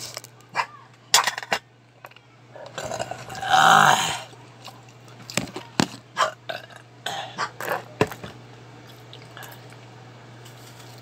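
A loud burp lasting about a second and a half, roughly three seconds in, among scattered small clicks and taps of eggshells and plates being handled at the table. A low steady hum runs underneath.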